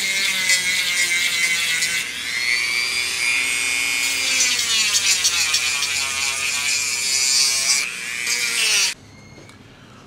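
Dremel rotary tool running at high speed with a high whine, its pitch dipping and recovering as the spinning bit is pressed into the edge of a leather holster's belt slot to grind off the sharp edge. It shuts off suddenly near the end.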